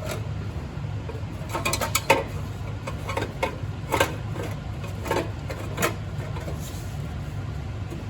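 Chevy 454 big-block V8 running with a steady low rumble, with several sharp clicks and knocks over it.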